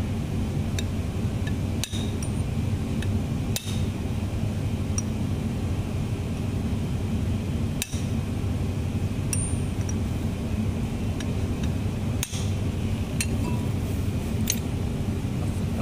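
A few sharp metallic clinks and taps, scattered and unevenly spaced, as a steel bar works a new oil seal into the rotary motor's seal housing. A steady low hum runs underneath.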